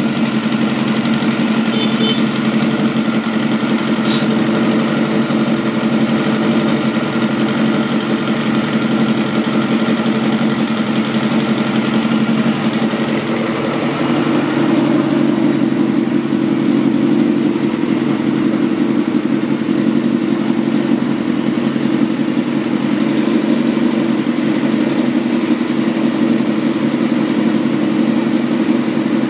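Honda Jade's 250cc inline-four engine, breathing through an aftermarket aluminium silencer, running at a steady idle. It gets a little louder from about halfway through.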